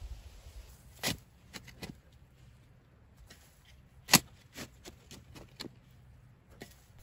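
A shovel digging into soil: a handful of short, sharp scrapes and clicks of the blade cutting in and lifting dirt, the loudest about four seconds in.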